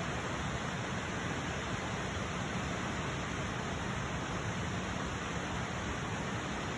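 Steady, even rush of water falling at the Mantchewe waterfall.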